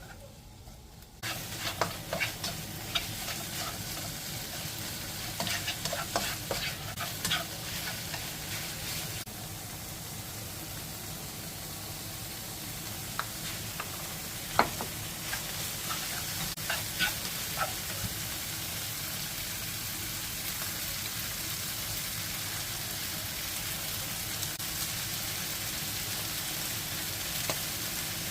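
Fried rice sizzling in a frying pan, with a spatula scraping and clicking against the pan as it is stirred. The sizzle starts suddenly about a second in and then holds steady; the stirring knocks come thickest in the first half.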